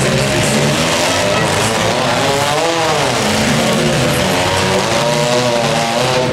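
Demolition derby compact cars' engines running hard and revving, the pitch climbing and falling twice as drivers push against each other.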